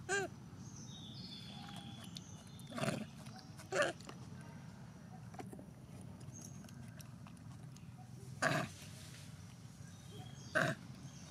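Female long-tailed macaque giving five short, pitched cries spread over several seconds: a mother calling for her missing infant.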